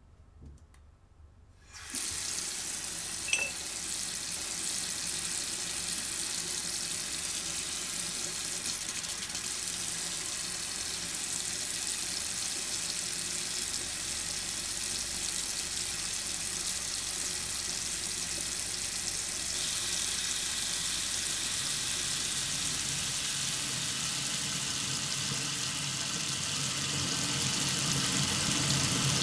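Steady rush of running water that starts abruptly about two seconds in, with a small click shortly after, growing slightly louder and brighter in the second half.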